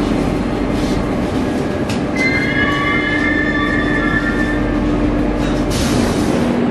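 Metrovagonmash Rusich metro train heard from inside the car: a steady rumble and hum. A high squeal of several tones comes in about two seconds in and lasts a couple of seconds, and a short burst of hiss follows near the end.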